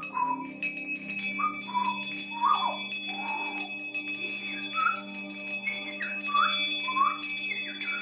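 Brass hand bells shaken continuously, ringing in a dense high shimmer, while a person whistles short gliding notes over them. A steady low hum runs underneath.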